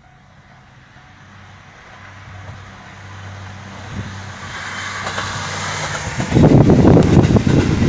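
JR train approaching a level crossing, its running noise building steadily, then passing close by from about six seconds in with a loud rumble and clatter of wheels on the rails.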